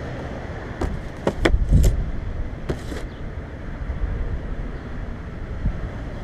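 Steady low rumble of a 2016 Mazda 3's engine running through dual Spintech Super Pro Street 9000 mufflers, with wind on the microphone. A few sharp clicks and knocks and a short rush of noise about three seconds in break through it.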